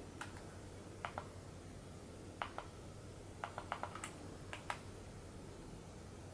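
Remote-control buttons clicking as they are pressed to step down a recorder's on-screen list. The presses come mostly as quick pairs of clicks, with a faster run of several clicks about three and a half seconds in, over a faint low hum.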